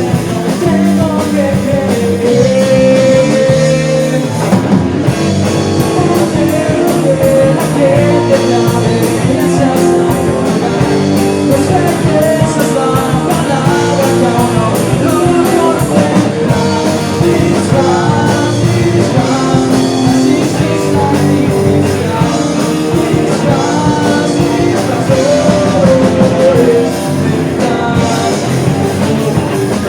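A band playing a rock song, with singing and guitar.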